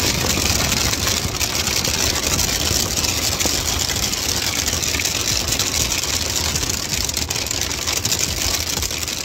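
Heavy storm rain and hail beating on a rooftop tent, heard from inside: a loud, dense, steady patter of countless small hits.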